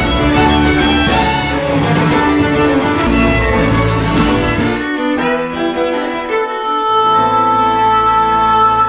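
A band playing Irish-style music led by fiddles, over a fuller backing. The bass drops away for a couple of seconds midway, and long held notes ring near the end.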